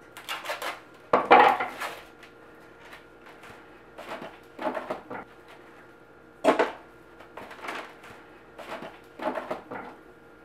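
Kitchen handling noises: irregular clatters and rustles as packets, bottles and containers are picked up and set down on a wooden counter and ingredients go into a steel bowl of ground beef.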